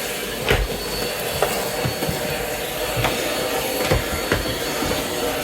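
Hetty vacuum cleaner running steadily with a thin whine, with about six short knocks and clatters at irregular moments as it is worked.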